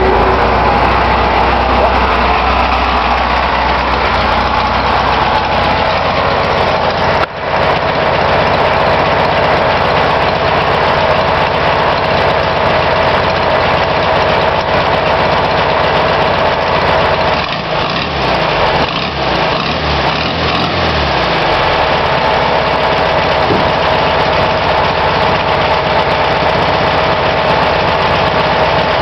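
1966 Volkswagen Beetle 1200's air-cooled flat-four engine running steadily at idle, freshly restored and running for the first time.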